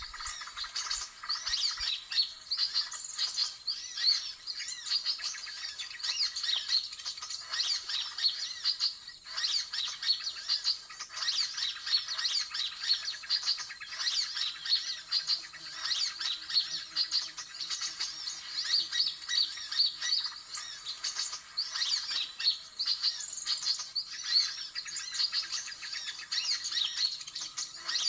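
Dense, unbroken chirping of many small birds in a noisy chorus: the 'suara ribut' commotion call used as a lure to draw birds in for trapping.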